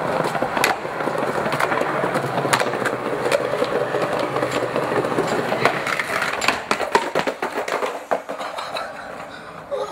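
Skateboard wheels rolling over concrete paving, a steady rumble broken by sharp clacks and knocks from the board. The rumble dies down about eight seconds in.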